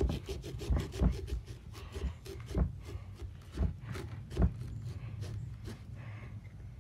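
Small pumpkin-carving saw cutting through the pumpkin's rind and flesh in quick back-and-forth strokes, loudest in the first four seconds or so and quieter after that.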